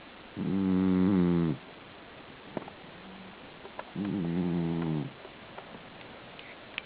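Cat snoring in its sleep: two snores about three and a half seconds apart, each about a second long, with a few faint ticks between them.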